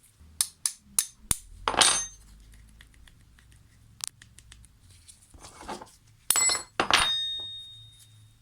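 Steel parts of Felco No. 2 secateurs being tapped and clinking as the blade is knocked out of its pins: a quick run of light taps at the start, then two louder metallic clanks near the end that ring on briefly.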